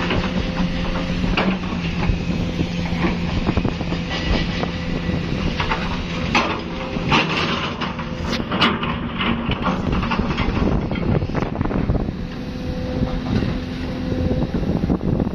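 Diesel engines of heavy construction machinery running steadily, with irregular clanks and knocks of metal and rubble over the top.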